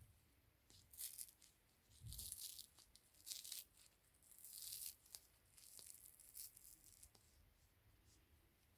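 Faint crinkly rustling and tearing as a self-heating eye mask and its packet of black powdery filling are pulled open and handled, in a string of short scratchy bursts about a second apart.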